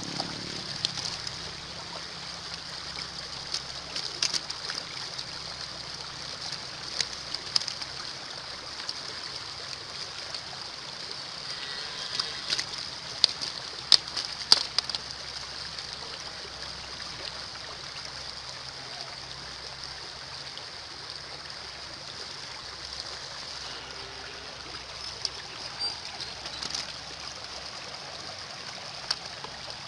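Muddy water running steadily over mud and stones, with scattered sharp splashes and knocks, thickest about halfway through.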